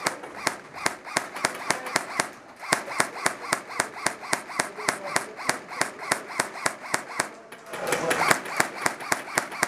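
Airsoft guns firing a rapid, fairly steady string of sharp cracks, several a second, with two short breaks.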